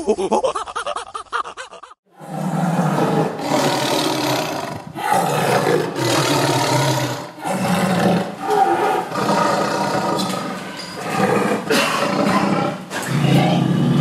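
Lion roaring in a run of rough, low calls, each about a second or so long, one after another. It starts suddenly about two seconds in.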